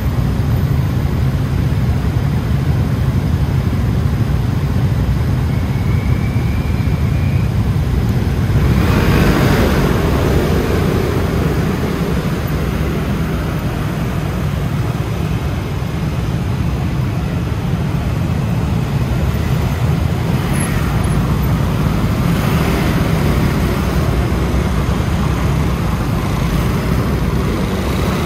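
Ride on a scooter in street traffic: a steady low rumble of engine and road noise, with a louder vehicle passing about nine seconds in.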